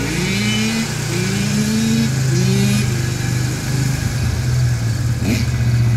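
Kawasaki KX85 two-stroke dirt bike engine revving in three or four rising bursts during the first half, then running at a steadier pitch.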